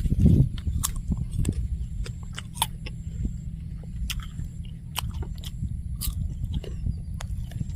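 Crisp apple being bitten and chewed, with irregular crunching clicks over a steady low rumble.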